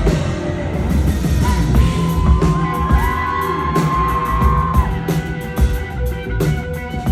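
Live rock band playing through a concert PA: drums, bass and electric guitar, with a long held high note in the middle.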